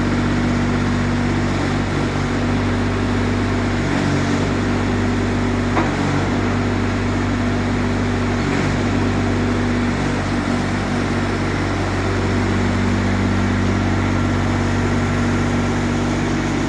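Small mini excavator engine running steadily, its note shifting slightly a few times.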